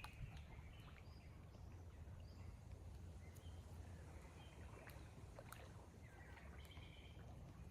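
Near silence: faint outdoor ambience with a steady low rumble, a few faint short high tones and a few soft ticks.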